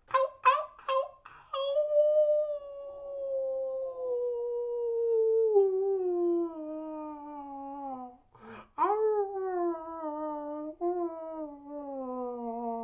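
A man's voice imitating a wolf howling at the moon: a few short yips, then one long howl that slides slowly down in pitch, and a second howl that rises quickly and then falls away.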